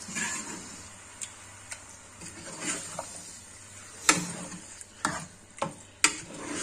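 Metal spoon stirring thick, mashed mustard-greens saag in an aluminium pot over butter, scraping and knocking against the pot's sides with several sharp clacks, the loudest in the second half, over a light sizzle.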